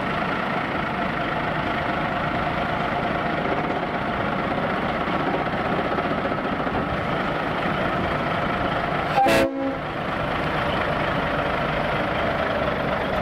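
Kenworth W900 semi tractor's diesel engine idling steadily just after starting, with one short horn toot about nine seconds in.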